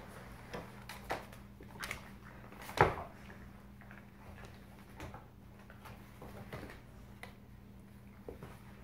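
Two dogs playing on a parquet wood floor: scattered clicks and knocks of paws and claws on the boards, with one louder thump about three seconds in, over a steady low hum.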